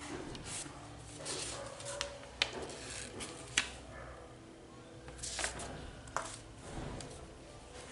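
Pen and paper being handled: soft rustling and scratching of the sheet with a few sharp clicks, the loudest about two and a half and three and a half seconds in.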